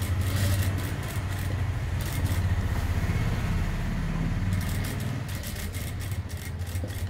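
Industrial lockstitch sewing machine running steadily, stitching through fabric with a fast, even needle rhythm over the motor's low hum.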